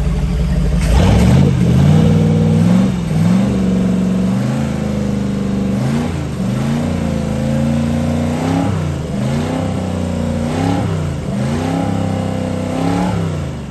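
Freshly overhauled 454 (7.4 L) big-block V8 marine engine with an Edelbrock carburetor running. From about a second in the throttle is blipped by hand over and over, the engine note rising and falling roughly every second or two.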